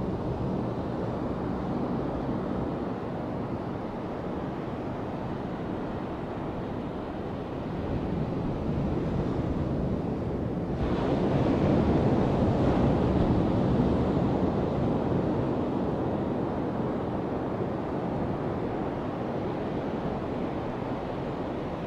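Ocean surf washing onto a sandy beach: a steady rush that swells louder about halfway through as a wave breaks on the shore.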